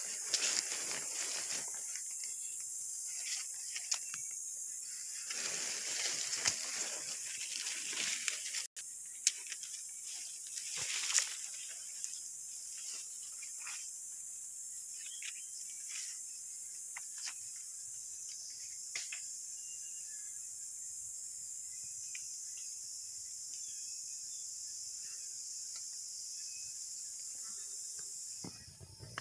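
Steady high-pitched insect chorus, typical of cicadas or crickets, that stops just before the end. Rustling noises come and go over the first ten seconds or so.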